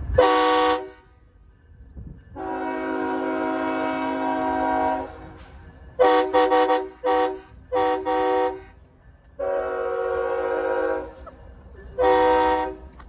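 Air horn of a BNSF freight locomotive sounding an irregular string of blasts as the train approaches and passes: a short blast, a long one, a quick run of short toots, more short blasts, another long one and a final short one. Low train rumble fills the gaps between blasts.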